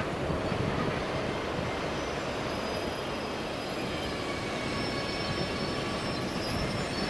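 A 2ES4K 'Donchak' two-section DC electric freight locomotive approaching with its train: a steady rumble of the locomotive and wagons running on the track, with thin high whines coming in from about two seconds in.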